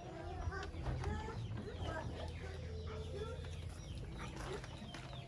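Chickens clucking, several birds calling over one another in short repeated calls, with a low steady hum underneath.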